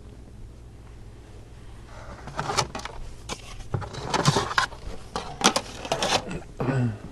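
Hard plastic and metal parts clicking and clattering as they are handled and set down, starting about two seconds in, with a short low sound that falls in pitch near the end.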